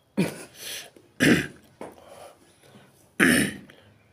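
A man coughing in three sudden bursts, about one and then two seconds apart, while he smokes.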